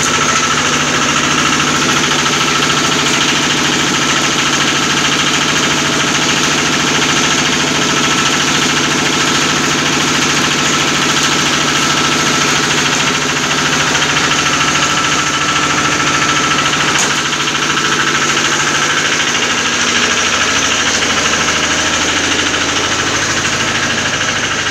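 Small stationary engine running steadily at a constant speed, driving a chopper machine.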